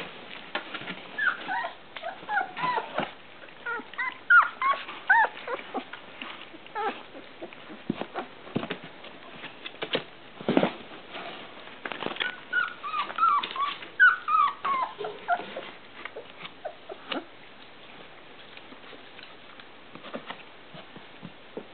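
Three-week-old rough collie puppies whimpering and squeaking in short high cries, in two spells, one in the first few seconds and another about midway, over scuffling and small knocks as they move about. The last few seconds are quieter.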